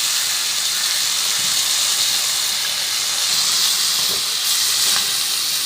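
Chicken pieces sizzling steadily in a pan with a little oil and freshly added masala powders, an even hiss with a couple of faint clicks near the end.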